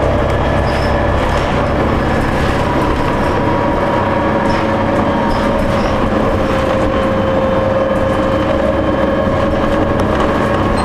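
Inside a New Flyer D40LF diesel transit bus under way: steady engine drone and road noise, with a steady whine above it.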